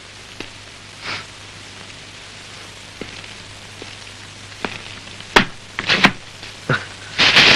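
Handling noises: a plastic carrier bag rustling and bags being set down on a table, with a few sharp knocks, over a steady hiss and low hum. The rustling is loudest near the end.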